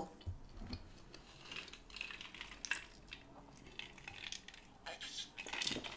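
Faint handling sounds: a few small clicks and light clinks as a glass mug is picked up and drunk from.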